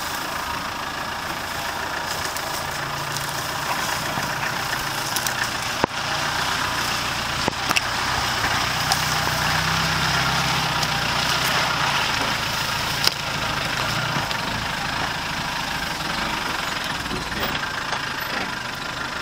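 Land Rover Defender's engine running at low revs as it crawls along a rough track, with a few sharp knocks and clicks from the vehicle over the bumps.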